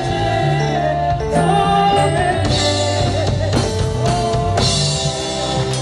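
Live gospel music: singing over a band with drums, bass and guitar.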